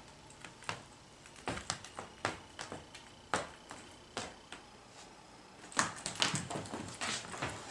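A dog wearing sneakers stepping on a hardwood floor: irregular light taps and scuffs, coming in a quicker flurry about six seconds in as it runs.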